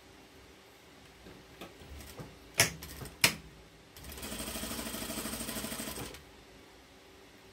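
Sewing machine stitching a zipper seam in one short run of about two seconds. The run comes after some handling noise and two sharp clicks a little over half a second apart.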